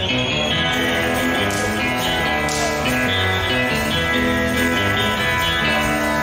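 Live rock band playing an instrumental passage, with guitars to the fore.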